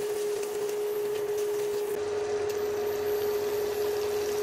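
Garlic and tomatoes frying in butter in a pan on an induction cooktop: a light sizzle with faint crackles over the cooktop's steady, even hum.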